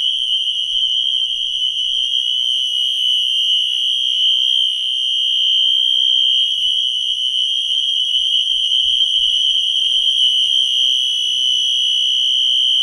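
Wheelock Exceder fire alarm horn strobe sounding its horn on continuous: one loud, steady, unbroken high-pitched tone.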